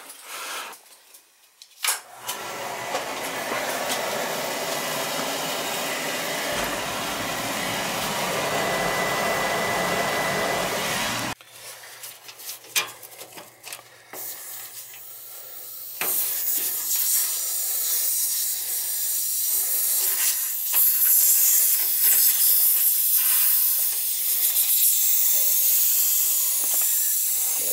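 A steady rushing hiss that cuts off suddenly partway through. Later, air hisses steadily out of an opened radiator bleed valve as a refilled hot-water heating system is bled of trapped air.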